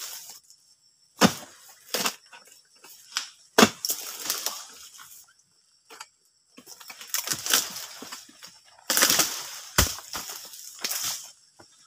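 Oil palm harvesting pole chopping into palm frond bases: sharp cracking strikes, each followed by rustling of the fronds. Near the end comes a longer, denser stretch of rustling and crackling.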